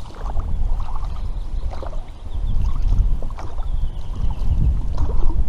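Inflatable boat out on the lake: a steady low rumble with scattered small splashes and knocks on the water.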